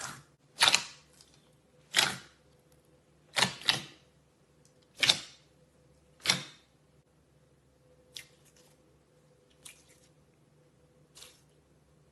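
Slime being pressed by hand, giving a string of short, sharp pops about every second and a half, loud at first and much fainter from about eight seconds in.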